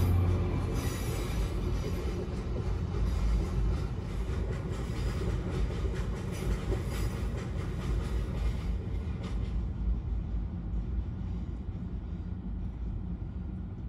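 DB Cargo freight train of empty box wagons rolling past over a stone bridge, wheels rumbling and clattering on the rails. The locomotive's diesel engine hum is heard only in the first second; after that it is wagon noise, slowly thinning toward the end.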